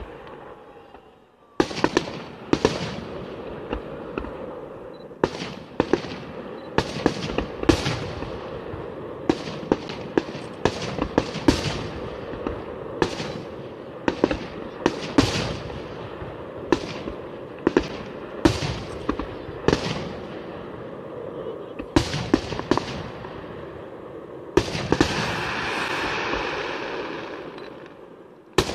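Aerial firework shells bursting in a large display: after a short lull, a rapid string of sharp bangs, sometimes several a second. Near the end the bangs give way to a steady rushing hiss.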